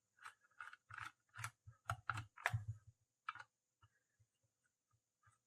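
Faint, irregular clicks and taps of a screwdriver on the back-panel screws and plastic case of a multimeter, as the battery and fuse cover is unscrewed. The clicks come thickly for the first three seconds, then only now and then.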